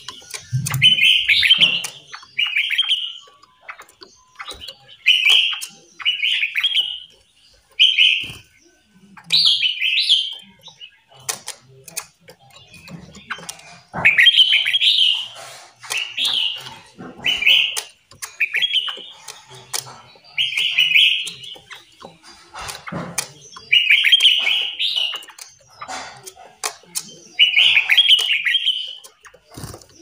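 Caged songbirds calling: short, bright chirping phrases, each about a second long, repeated every second or two, with a few faint clicks between them.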